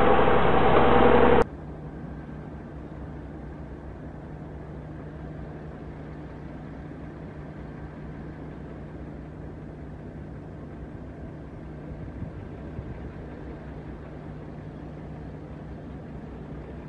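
A loud passage stops abruptly about a second and a half in. After it, the diesel engine of a Kenworth dump truck idles steadily at a low level, with a constant low hum.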